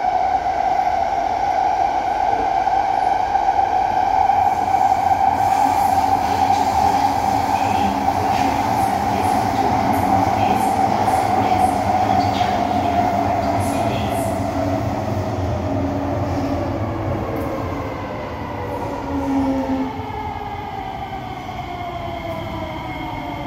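Running noise inside an SMRT C151B metro train: a steady high whine with higher overtones over a low rumble of wheels on rail. About halfway through, the whine slowly falls in pitch and the noise eases as the train slows into a station.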